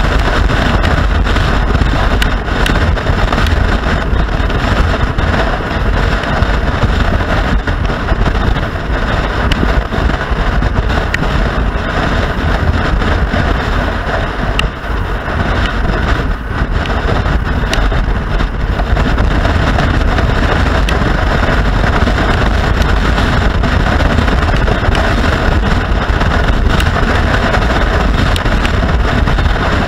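Wind rushing over the microphone of a moving motorcycle, with the motorcycle's engine running steadily underneath. It is loud and continuous.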